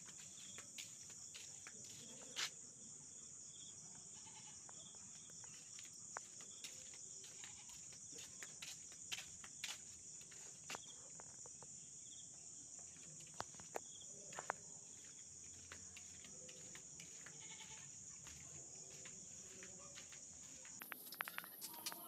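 Faint, steady high-pitched chirring of night insects, with scattered light clicks; near the end the insect sound jumps to a higher pitch.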